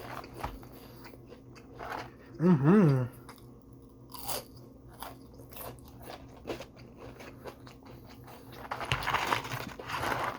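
A person biting into and chewing crispy fried food close to the microphone, with repeated crunches. About two and a half seconds in there is a short hum of the voice, and the crunching thickens near the end.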